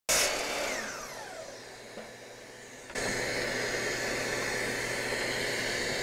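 Bosch GCM12SD 12-inch glide miter saw's motor spinning down after a cut in oak, its whine falling in pitch over the first second and a half. About three seconds in, the steady whir of a vacuum used for dust collection starts abruptly.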